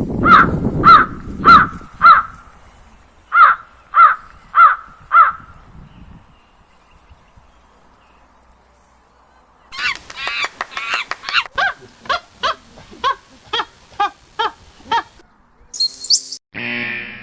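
Electronic crop-protection animal repeller playing recorded animal calls through its loudspeaker: short pitched calls about two a second, four and then four more, then after a pause of about four seconds a faster run of calls, a brief high glide and another call near the end.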